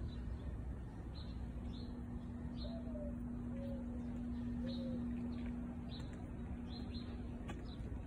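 Small birds chirping outdoors: short, high, downward chirps repeated every half second or so, with a few lower calls in the middle. A steady low hum and a rumbling background run underneath.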